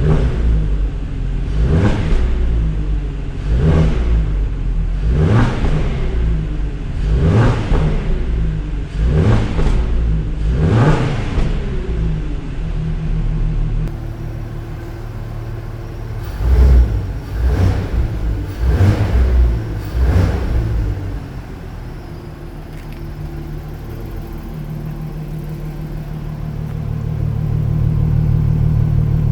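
Porsche Cayenne 957's 3.6-litre VR6 through its stock exhaust, revved in short blips about every two seconds. After a break come a few more blips, then it runs steadily and grows louder near the end.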